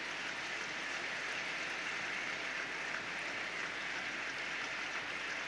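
Large indoor audience applauding steadily, a dense even clatter of many hands.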